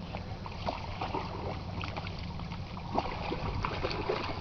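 Pond water lapping with small faint ticks and laps, under a steady low wind rumble on the microphone; one slightly sharper water tick about three seconds in.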